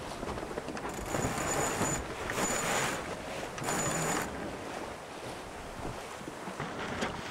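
Wind and sea rushing past the deck of an IMOCA 60 ocean-racing yacht under way, with wind buffeting the microphone. Three louder surges of about a second each come close together in the first half, each with a faint high whine.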